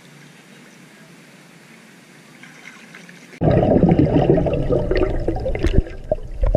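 Swimming pool water heard through a camera's microphone as it goes under: a faint steady hiss at first, then, about three and a half seconds in, a sudden loud muffled underwater rushing with bubbling crackles.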